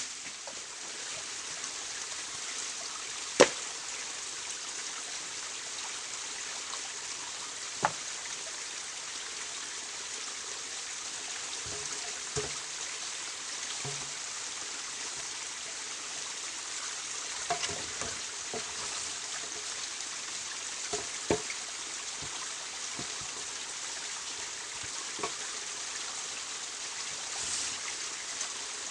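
Steady hiss of running water, broken by a few sharp knocks, the loudest about three seconds in.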